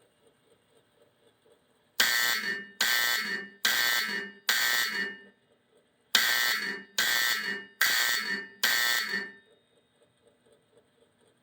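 Fire alarm bell driven by a 1965 Honeywell W247B coded fire alarm control panel, sounding the master code 4-4: four strokes, a pause of about a second, then four more strokes. Each stroke rings out and fades before the next.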